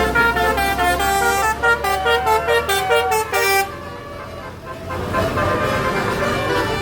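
Telolet multi-tone bus horn playing a quick tune of short notes that step up and down in pitch. It breaks off for about a second just past halfway, then sounds again.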